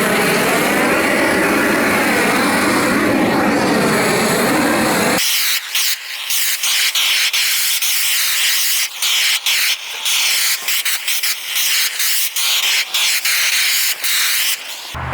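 Large propane torch burning with a loud, steady rush as it chars the wood surface. About five seconds in the low rumble drops away, leaving a hiss that keeps breaking up in short gaps.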